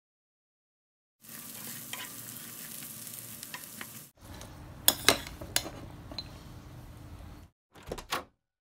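Cubes of fried tofu sizzling in oil in a frying pan, with a spatula scraping and clicking against the pan as they are stirred. The sizzle starts about a second in, after silence, and stops near the end.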